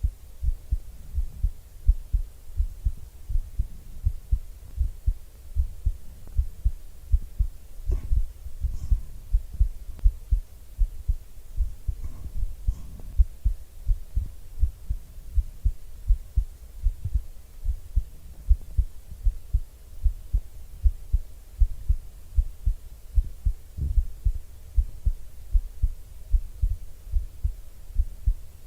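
A person's heartbeat, close-miked: a steady, even lub-dub of low, soft thumps. A few faint scratchy rustles come through about a third of the way in and near the middle.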